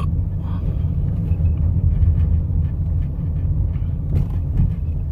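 A person hiccuping: a short, sharp hiccup right at the start and another about four seconds in, over a steady low rumble.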